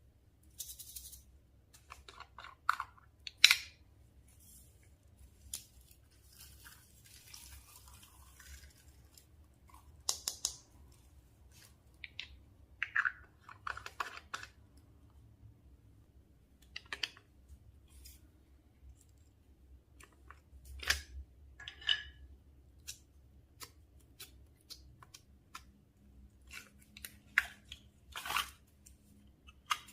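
Slime being squeezed and mixed by hand, giving irregular sticky pops, clicks and squelches, with a few longer squishy stretches.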